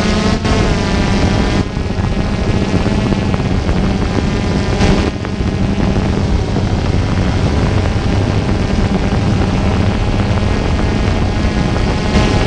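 A multirotor drone's electric motors and propellers whirring up close. The pitch shifts in the first second or two, then holds steady.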